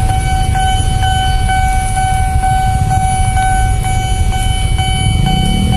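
Railway level crossing alarm ringing, one steady electronic tone repeating about twice a second, over the low rumble of idling motorcycles and cars queued at the crossing. A lower wavering tone swells in near the end.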